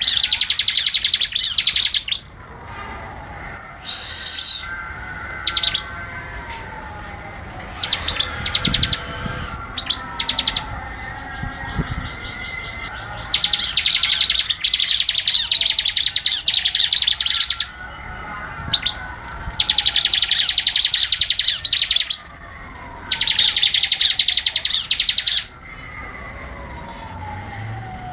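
Ciblek (a prinia) singing in repeated bursts of very fast, high chattering trills, each lasting one to four seconds with short pauses between. Quieter long falling whistles recur underneath about every three seconds.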